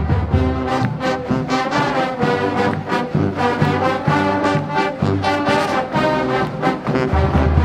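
Marching band playing, brass carrying the tune over a steady drum beat.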